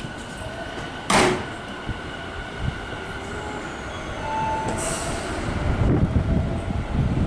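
Commuter electric train running on rails. A sharp burst of air hiss comes about a second in and a shorter high hiss near five seconds, and low wheel-and-rail rumble builds toward the end.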